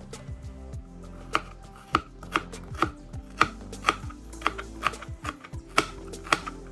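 Kitchen knife chopping vegetables on a plastic cutting board: sharp, regular strikes, about two a second, starting about a second in.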